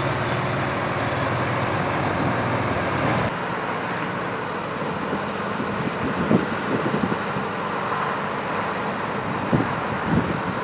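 Heavy truck's diesel engine running steadily; about three seconds in the sound cuts to a fainter engine with gusts of wind buffeting the microphone.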